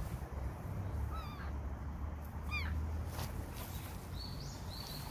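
Kitten meowing twice, short high arched calls about a second in and again about two and a half seconds in, with brief rustles in the grass.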